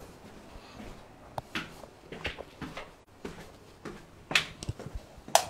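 Footsteps and handling of a wooden interior door as it is pushed open, heard as a string of irregular knocks and taps, the sharpest near the end.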